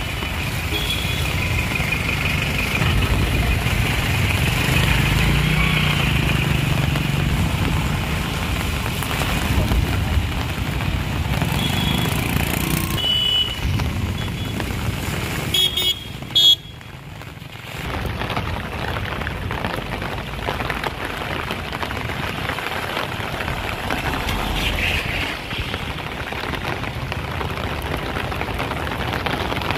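Heavy rain and traffic on a wet city street: a steady hiss of rain and tyres on wet road, with short vehicle horn toots around the middle. About sixteen seconds in there is a brief loud burst, then the sound drops for a moment before the rain and traffic noise returns.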